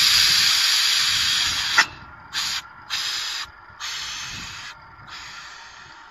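Compressed air hissing through a Hengwang down-the-hole drilling rig: a long, loud blast that cuts off sharply about two seconds in, then four short bursts of air, each fainter than the last.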